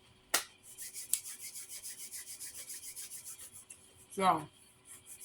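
A sharp click, then a quick, even run of dry, scratchy rubbing strokes, about six or seven a second for some three seconds.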